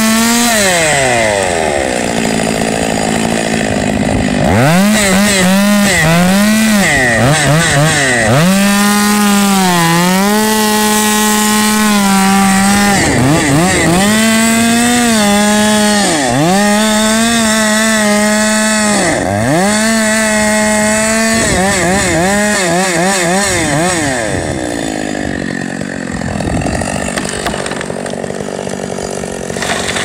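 Gas chainsaw felling a tree trunk. The engine runs at high revs and bogs down again and again as the chain bites into the wood, recovering each time. About three-quarters of the way through, the revs drop away and the engine noise fades.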